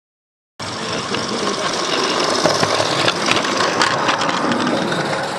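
16 mm scale live-steam garden railway locomotive hissing steam: a steady rushing noise with scattered clicks, starting abruptly about half a second in.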